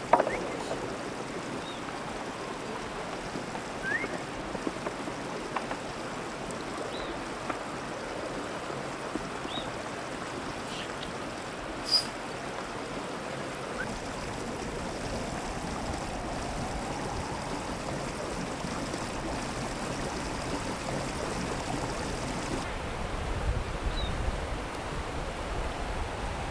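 A river rushing steadily, with a few faint short high chirps and a single sharp tick about halfway through.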